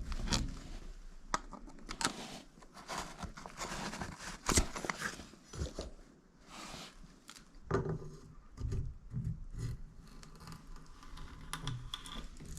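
Hands working on a shower valve, with scraping, rustling and sharp clicks of parts and tools being handled, then duller knocks in the second half.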